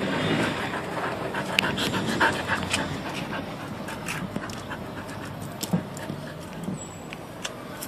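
A dog panting close to the microphone, loudest in the first few seconds, with a few sharp clicks.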